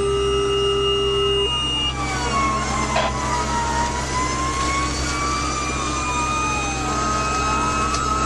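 Fire engine siren wailing, its pitch sliding slowly down and back up, over the steady rumble of the truck's engine. A steady held tone at the start cuts off in the first two seconds.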